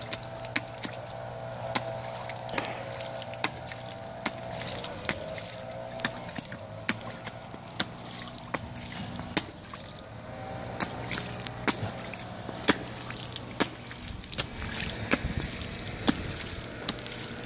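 Small child in rubber rain boots stomping and splashing in a shallow rainwater puddle on pavement: sharp, irregular splashes about one or two a second over a steady low hum.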